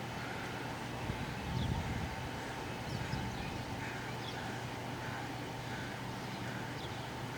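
Outdoor background of a steady low hum with faint, short, high bird chirps about once a second.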